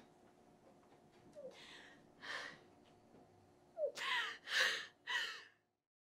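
A woman sobbing: a few shaky, gasping breaths, then three louder sobbing gasps in quick succession near the end, after which the sound cuts off suddenly.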